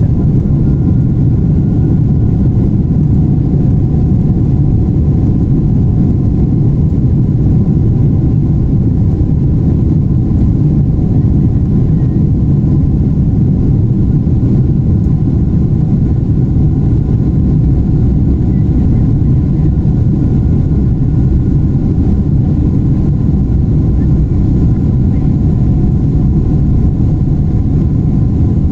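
Steady low rumble of a Boeing 777 heard from inside the aircraft, engine and airflow noise running at a constant level with a faint steady hum over it.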